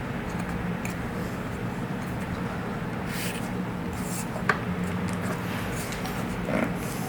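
Light rubbing and handling noises of parts being worked by hand, with one sharp click about four and a half seconds in, over a steady low hum.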